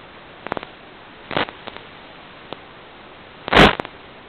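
Steady static hiss from an analog FPV receiver's audio channel, broken by short crackles and one loud burst of static about three and a half seconds in: radio interference on the video link.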